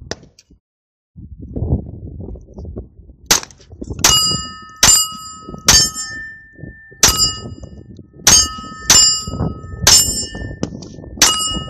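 Sig Mosquito .22 LR pistol fired about nine times at an uneven pace, starting a few seconds in. Most shots are followed by the bright ring of steel targets being hit.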